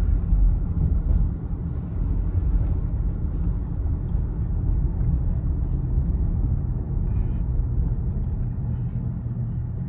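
2015 Honda CR-V being driven: steady low road and tyre rumble with no clunks or rattles from the front suspension, now fitted with new sway bar bushings and end links.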